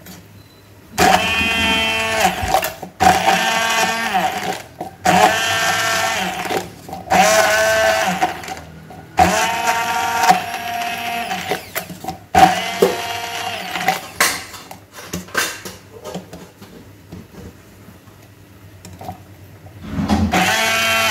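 Electric hand blender run in repeated pulses of one to two seconds, blending soaked dates, almonds and fox nuts with a little milk into a thick paste in a tall beaker. After about seven pulses it stops for several seconds with only small clicks, then starts again near the end.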